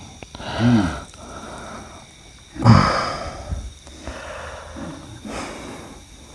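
A man's vocal effort sounds: a short grunt under a second in, then about three seconds in a loud, forceful breathy exhale with a low falling grunt beneath it, followed by softer hissing breaths.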